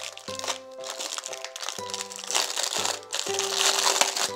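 Thin clear plastic bag crinkling and crackling as it is pulled open by hand, loudest in the second half, over children's background music.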